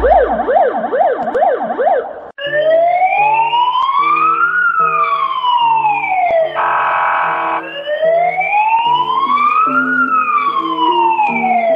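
Siren sound effect over background music: a fast up-and-down warble for about two seconds, then a slow wailing siren that rises and falls twice, broken in the middle by a horn-like blast about a second long. Short steady music notes run underneath.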